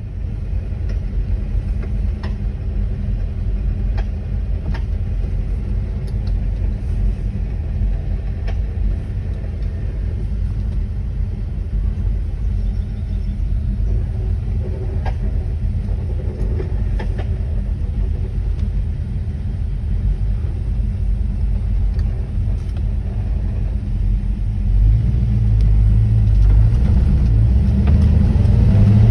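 1979 Camaro Z28's V8 engine running with a steady low rumble and faint occasional ticks. It grows louder over the last few seconds.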